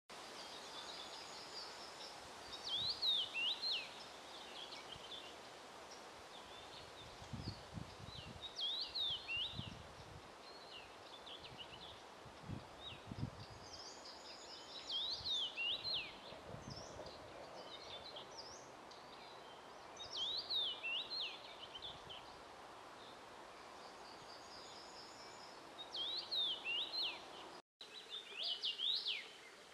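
Male common rosefinch singing its short whistled song phrase, about a second and a half long, repeated every five or six seconds.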